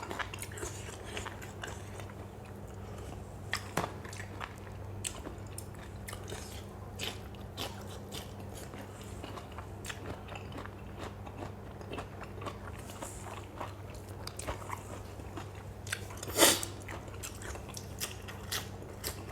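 Close-up eating sounds: biting, crunching and chewing a spicy pounded salad of lotus stems and fresh shrimp, with many small crunches and one louder crunch about sixteen and a half seconds in.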